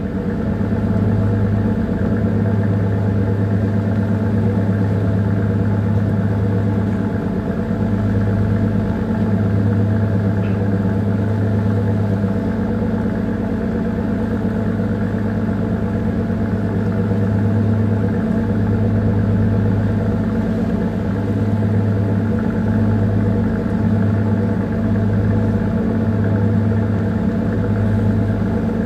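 A small bunker tanker's diesel engine running steadily while under way, a low even hum with several steady tones.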